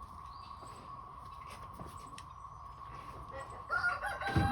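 A rooster crowing near the end, one long call with a held note, over faint farmyard sounds and a steady high tone; a low thump comes just as the crow peaks.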